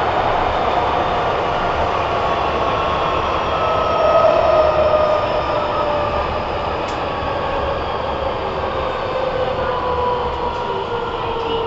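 Nagoya Municipal Subway N3000-series train heard from inside the car: steady running rumble with a motor whine that falls slowly in pitch as the train slows.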